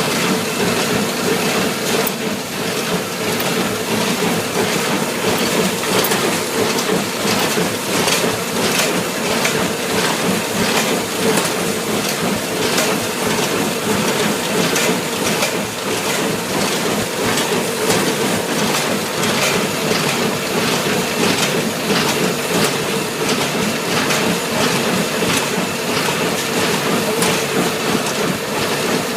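New Holland BC5070 small square baler running in first-cut hay, with repeated clattering knocks from its working parts over a steady mechanical drone.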